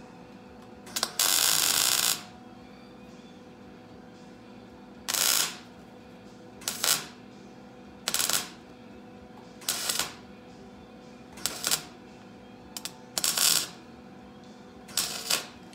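Electric welder laying a series of short tack welds on a steel quarter panel where it meets the rocker: about eight separate bursts of crackling. The first burst lasts about a second, the rest half a second or less each, spaced a second or two apart, over a faint steady hum.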